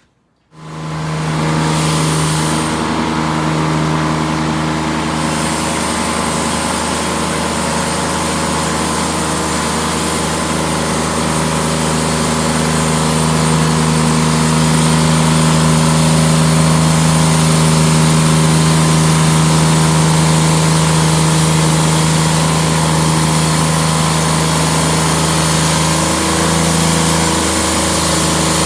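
Portable band sawmill running: a steady engine drone that starts abruptly about half a second in and grows a little louder partway through.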